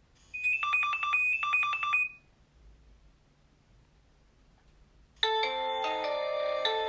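Nokia 6230i polyphonic tones. First a short alert of two quick trilling runs of high beeps, then, after a pause of about three seconds, the next tone begins with sustained chords.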